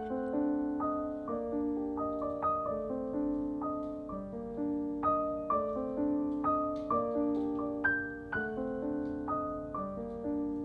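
Background piano music: a gentle, steady flow of sustained notes.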